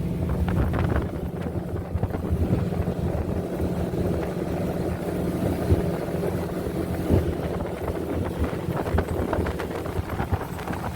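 A boat's engine running steadily as the boat moves along the river, with wind buffeting the microphone.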